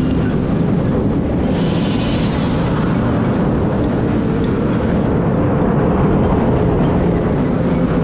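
Motorcycles riding at speed through a road tunnel: steady engine noise under a heavy, low rumble of wind on the microphone.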